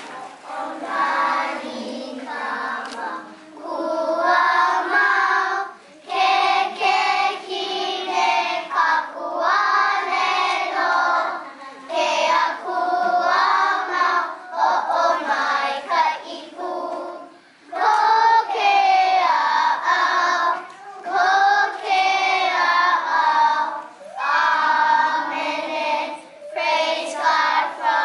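A group of young children singing a song together in unison, in phrases separated by short breaths.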